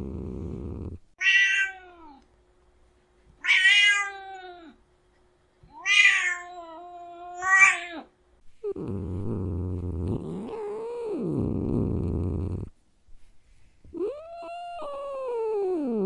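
Domestic cat meowing and purring. A low, steady purr is cut off about a second in, then four short meows come within the next seven seconds. The purring returns with one meow over it, and a longer meow falls in pitch near the end as the purr picks up again.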